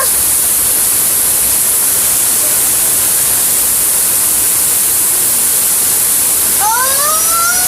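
Steady, loud hiss of heavy thunderstorm rain pouring. Near the end a short rising voice-like tone is heard over it.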